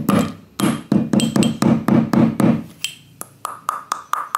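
Metal pestle pounding a piece of akarkara root in a metal mortar, about three to four strikes a second. The strikes are dull thuds at first; after a brief pause about three seconds in, they ring with a metallic ping.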